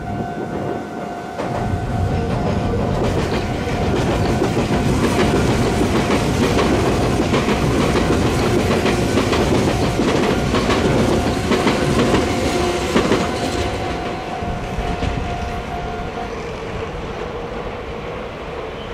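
Meitetsu electric train passing close by over the junction tracks: wheels clattering over the rail joints and points, building from about two seconds in, loudest in the middle, then fading as the train moves away. A steady high tone sounds alongside and stops about three-quarters of the way through.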